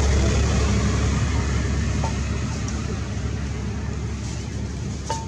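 Steady low rumble of a motor vehicle, slowly fading as it moves away.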